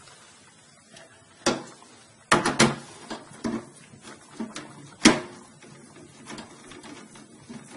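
Sharp knocks and clicks of screws and a screwdriver being handled against a desktop computer's metal case while the motherboard is screwed back in: a single hit, then a quick cluster of three, then scattered lighter taps, the loudest about five seconds in.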